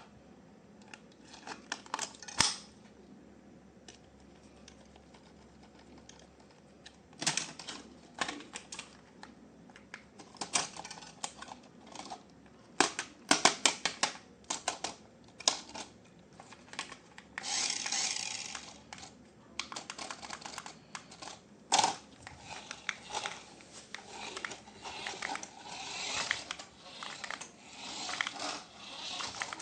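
Irregular plastic clicks, taps and rattles of toy packaging and parts being handled, with a longer rasping rustle about two-thirds of the way through.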